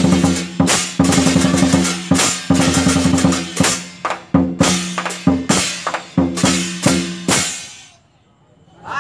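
Lion dance drum and cymbals played in a fast, driving rhythm, with the drum's deep ringing tone under the cymbal crashes. The playing stops a little over a second before the end.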